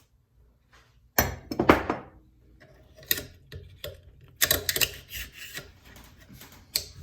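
AR-15 bolt carrier and other metal rifle parts being handled: clinks, knocks and rattles of metal on metal in several short bursts.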